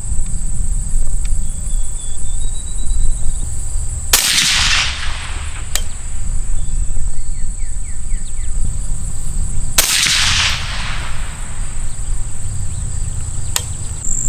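Two shots, about six seconds apart, from a suppressed 6.5 Grendel AR-15 pistol firing Wolf steel-case 100-grain full metal jacket ammunition. Each crack is followed by a short echo lasting about a second.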